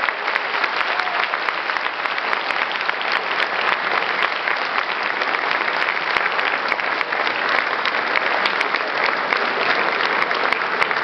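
Large audience applauding, a dense steady clapping of many hands that holds at one level throughout.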